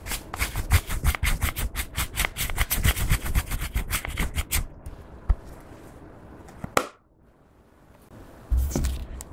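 Close-miked makeup brush scrubbing fast across the plastic pans of an emptied eyeshadow palette, a rapid scratchy rattle of bristle strokes for about four and a half seconds, then softer brushing. A sharp tick comes just before seven seconds, a moment of near silence follows, and low thumps begin near the end.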